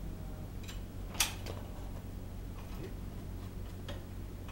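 Scattered metallic clicks and taps from hand tools working on the underside of a car on a lift, with one sharp, loud click about a second in. A steady low hum runs underneath.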